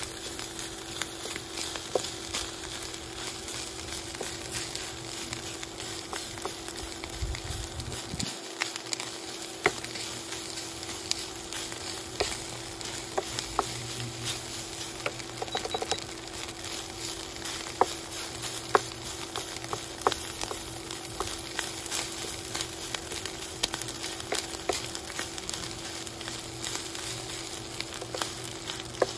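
Shredded beef sizzling in a stainless steel frying pan as its water cooks off, with a wooden spatula scraping and clicking against the pan as it is stirred. A steady hum sits underneath.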